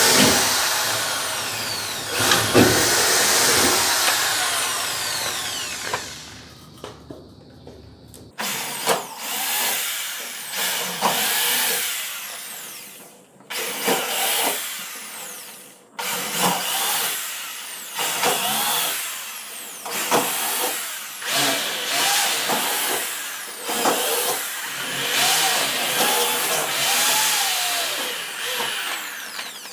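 A handheld power tool run in repeated short bursts, each starting abruptly and fading away over a second or two.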